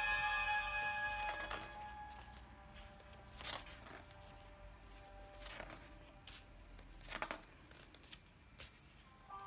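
Pages of a large illustrated hardcover book being turned by hand: about five short paper swishes a couple of seconds apart. Background music fades out in the first two seconds and comes back right at the end.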